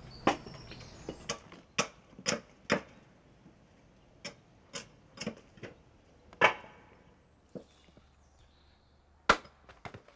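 Wooden mallet striking a froe to split wood, giving sharp, separate knocks in runs of about two a second. Two louder blows come about six and a half and about nine seconds in.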